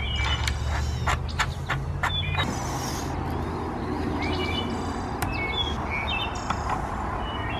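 Birds chirping in short, scattered calls over a steady low rumble. A few light clicks come in the first couple of seconds as a metal muzzle adapter is handled and worked off an air rifle barrel.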